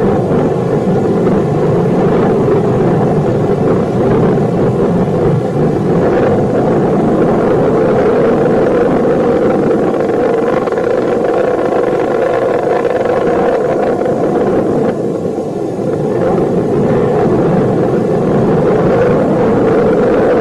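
Rocket launch noise: a loud, steady rumble of rocket engine exhaust, dipping briefly about fifteen seconds in.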